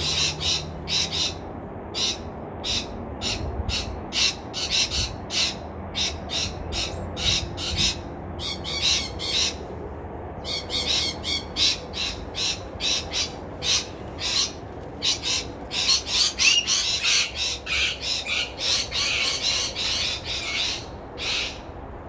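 Parrots calling: a long run of short, harsh high calls, several a second at times, busiest in the last quarter and stopping shortly before the end.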